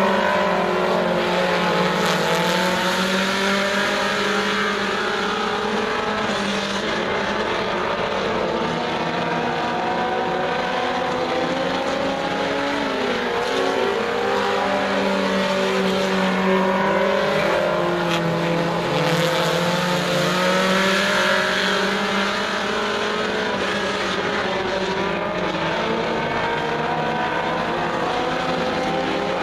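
Several four-cylinder Super Stock dirt-track race cars running laps together, their engines revving up and easing off over and over as they pass and go through the turns, several pitches overlapping at once.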